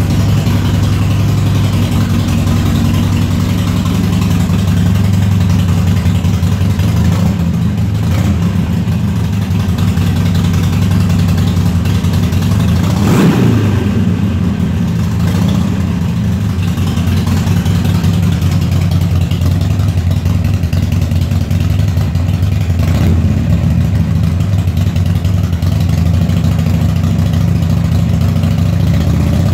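2007 Harley-Davidson Sportster 1200's air-cooled V-twin idling steadily through aftermarket Screamin' Eagle II slip-on mufflers, with one brief louder swell about halfway through.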